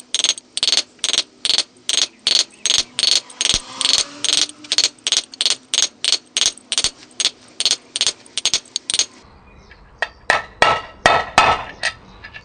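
Hammer tapping a ball bearing into an aluminium quad gearbox housing through a bearing race used as a driver: even, sharp metallic taps about three a second. After a pause, a few more taps near the end ring tinnier as the bearing reaches its seat.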